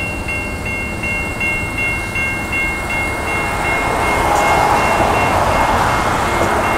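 Railroad crossing bell ringing in rapid strokes, about three a second, while the rushing noise of the approaching CSX freight train swells from about halfway through. Near the end a steady low horn tone from the train comes in.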